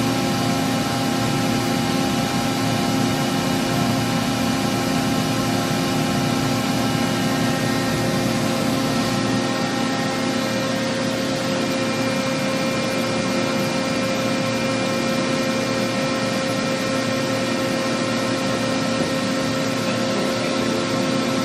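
Toshiba BTD-200QF CNC horizontal boring mill running under power: a steady machine hum and whir with several held tones. The mix of tones shifts about ten seconds in, as some drop out and a higher one comes in.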